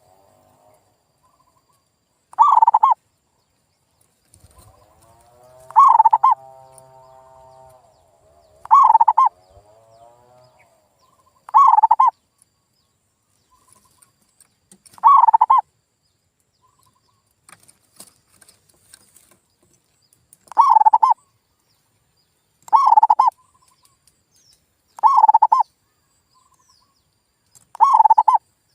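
Male zebra dove (perkutut) cooing, about nine short phrases a few seconds apart with pauses between, used as a lure call to set other perkutut singing.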